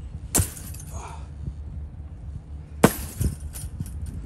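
Two sledgehammer blows on a broken-up couch, about two and a half seconds apart, each a sharp crack followed by a short clatter of smaller cracks.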